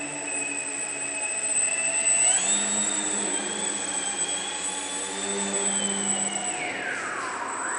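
Small electric model airplane's motor and propeller whining. The pitch jumps up about two seconds in as the throttle is raised and the plane hangs nose-up. It holds there, then drops sharply near the end and starts to climb again.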